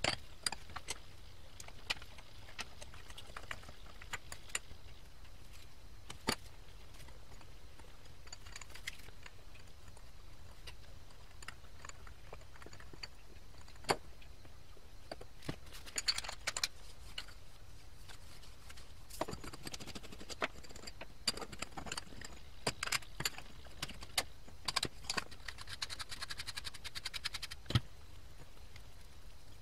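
Small metal parts and hand tools handled on a workbench: scattered clinks, taps and clicks of metal pieces against each other and the mat, growing busier in the second half, with a run of rapid clicks near the end.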